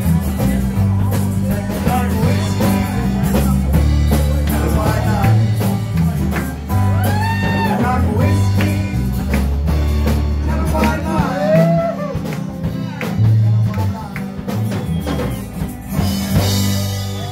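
A live band playing a song: a woman sings lead over strummed acoustic guitars and electric guitar.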